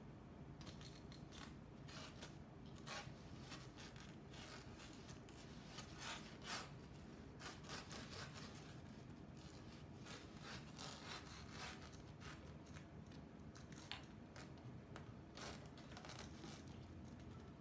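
Faint scraping and rustling of paper cut-out shadow puppets and their rods rubbing against the paper screen as they are moved, in many short, irregular strokes.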